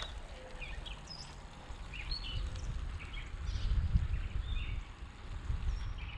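Several birds chirping with short, scattered calls, over a low wind rumble on the microphone that swells about midway.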